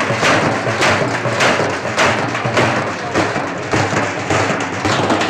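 Halgi frame drums beaten with sticks in a fast, steady, loud rhythm.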